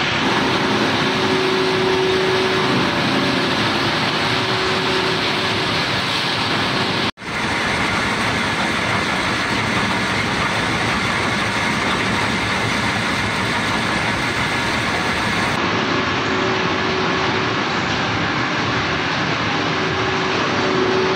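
Jiulong horizontal grinder shredding branches into wood chips: a steady, dense mechanical roar with a faint hum under it. The sound drops out for a split second about seven seconds in, then carries on unchanged.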